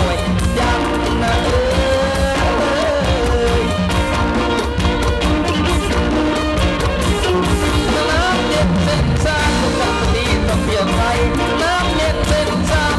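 Loud band music with a steady beat and a voice singing over it, from the likay troupe's band.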